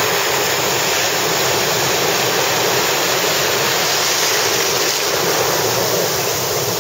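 Shallow ocean surf washing and breaking in a steady rush.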